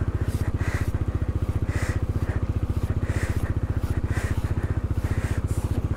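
Bajaj Dominar 400's single-cylinder engine idling steadily with an even, rapid beat, warming up just after a cold start in sub-zero temperatures.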